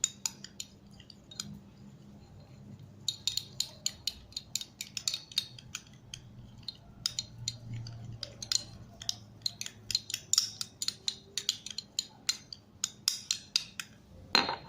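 Small spoon stirring liquid glue and colouring in a bowl, clicking and scraping against the bowl in quick, irregular taps that get busier about three seconds in.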